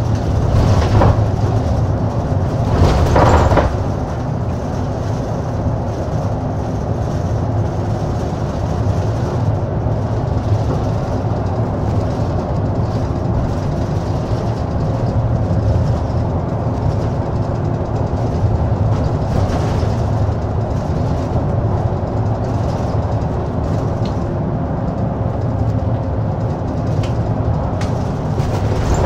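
Interior running sound of an Ofunato Line BRT bus under way: a steady low engine hum with road and body noise, and a brief louder rush of noise about three seconds in.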